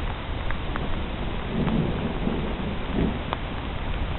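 Thunderstorm: steady rain with scattered drops ticking close by, and a low rumble of thunder swelling in the middle.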